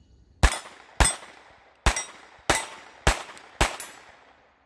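Six shots from a .22 rimfire pistol fired in one string at steel plates, about half a second to a second apart. Each shot is followed by a short ringing tail from the struck steel.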